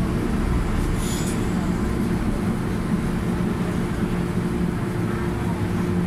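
MTR M-Train heard from inside the carriage by the door, slowing as it runs into a station platform: a steady low rumble of the wheels and running gear with a steady electric hum from the traction equipment. A brief hiss about a second in.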